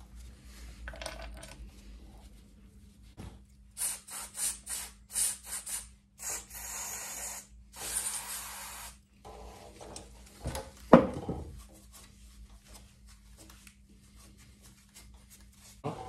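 Aerosol cleaner sprayed onto a motorcycle's rear brake caliper: a run of short hissing spurts, then two longer blasts of about a second each. About eleven seconds in, a loud knock.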